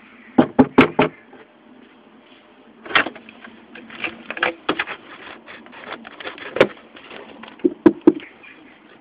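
A series of sharp knocks and rattles: a quick run of four about half a second in, scattered knocks through the middle, and a close pair near the end.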